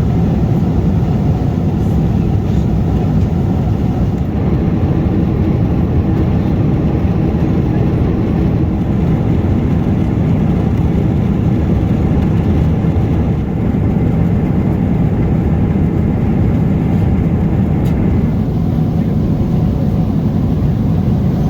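Steady cabin noise of a Boeing 777-300ER in flight: an even, low roar of airflow and engines that does not change.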